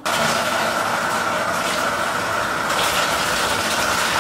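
Bathtub filling from the tap: a steady rush of running water pouring into the tub.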